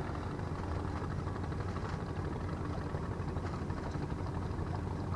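Steady low hum of a distant boat engine running on the water.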